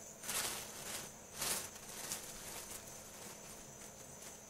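Hands rummaging in a cardboard produce box: two short rustles of packing and produce, about a third of a second and a second and a half in, then a few faint handling clicks. A steady high insect buzz runs underneath.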